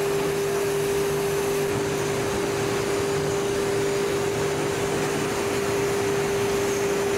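Glass furnace burner and air blower running: a steady rushing noise with a constant hum.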